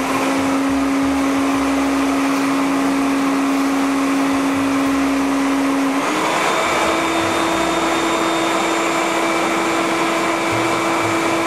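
Wet/dry shop vac running as a blower, pushing a steady rush of air through a homemade venturi tube, with a strong motor whine. About halfway through, the whine steps up to a higher pitch and stays there.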